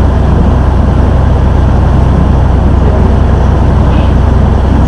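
A river tour boat's engine runs with a steady low drone, along with the rush of water past the hull.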